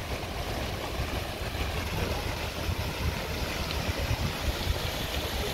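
Steady low rumble and hiss of outdoor noise, uneven from moment to moment, with no single clear event.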